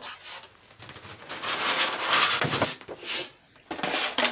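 Styrofoam packing piece rubbing and scraping against the cardboard box as it is lifted out. It is a rough rustle lasting about a second and a half, with a shorter one near the end.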